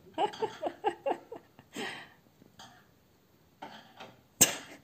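A toddler working at a cabinet door hinge with a screwdriver: a quick run of short squeaks in the first second, a few soft rustles, then one sharp knock near the end.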